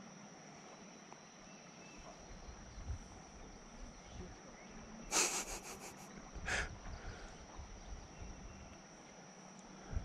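Insects singing in a steady, faint high tone. A brief scratchy noise comes about five seconds in, with another about a second and a half later.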